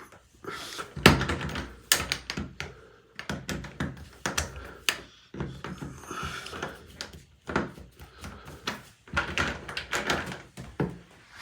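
Irregular clicks, knocks and rattles of a non-locking interior door knob and its latch hardware being fitted and screwed tight with a screwdriver.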